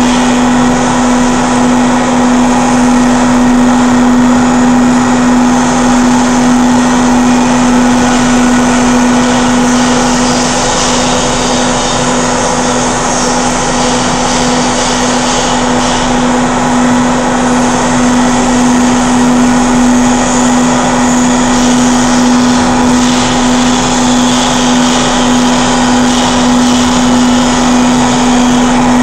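Industrial high-vacuum cleaner with an induction (asynchronous) motor running steadily: a loud, even hum with a strong low-mid whine over a rushing hiss of air.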